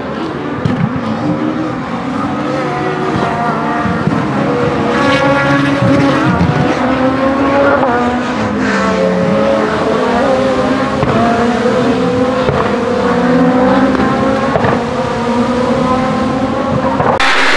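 Renault Clio Super1600 rally car's 1.6-litre four-cylinder engine being driven hard through tight turns, its pitch climbing under acceleration and falling off again and again as the driver shifts and brakes. Near the end the sound switches abruptly to a harsher, noisier one.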